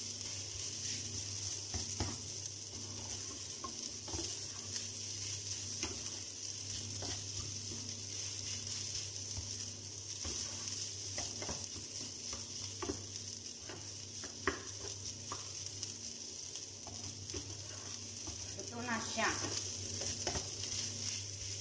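Fried rice sizzling in a nonstick frying pan as it is stir-fried, cooked until it forms a crust, with a spatula scraping and tapping against the pan at irregular intervals over a steady low hum.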